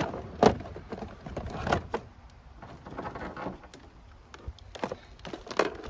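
Tools and parts knocking and clattering as they are packed back into a box: a few sharp knocks early, a quieter stretch in the middle, then more knocks near the end.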